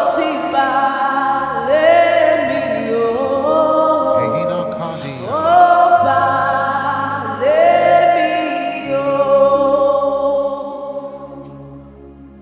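Gospel worship music: a voice sings long, wordless held notes that slide up into pitch, over a sustained low accompaniment. It fades away near the end.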